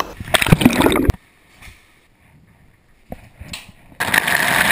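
Water rushing around a white ceramic bowl for about a second, then cutting off abruptly. A similar loud burst of rushing noise, also about a second long and cut off sharply, comes shortly before it near the start.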